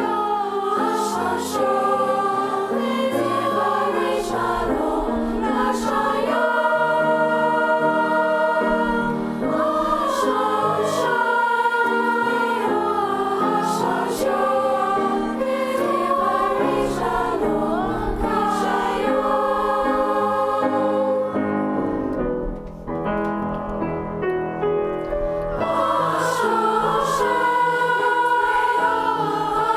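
A choir singing in parts, holding long notes. About two-thirds of the way through, a brief softer, thinner passage comes before the full choir returns.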